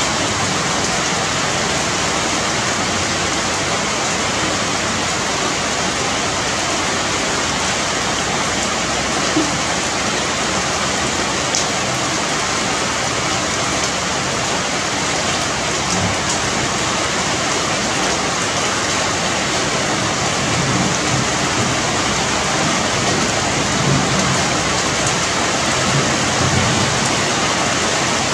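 Steady rain falling on dense broadleaf tree foliage: an even, unbroken hiss, with a few louder drop hits now and then.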